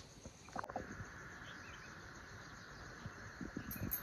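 Faint, steady chirring of crickets, with a few soft knocks from the phone being handled.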